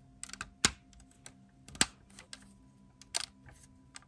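Hard clear plastic crystal-puzzle pieces clicking and tapping together as a side piece is slid into place on the model ship. Three sharp clicks come about a second apart, the first two the loudest, with lighter ticks in between.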